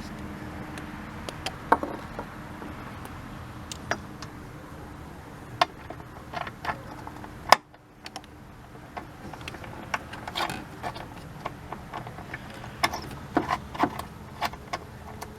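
Scattered small metallic clicks and taps while the rusty battery hold-down bolt is threaded in, with one sharper click about halfway through.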